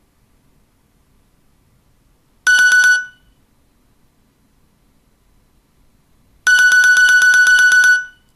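A loud, rapidly pulsing electronic ring sounds twice: a short burst of about half a second, then a longer one of about a second and a half.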